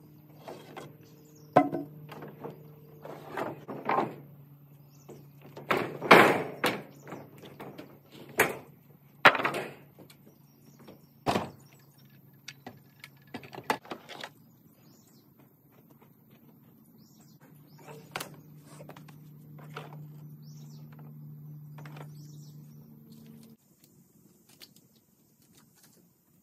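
Irregular thunks and clanks of building materials and tools being handled: lumber, an aluminium ladder, an extension cord and power tools picked up and set down, loudest about six and nine seconds in. A steady low hum runs beneath and cuts off a few seconds before the end, with faint bird chirps.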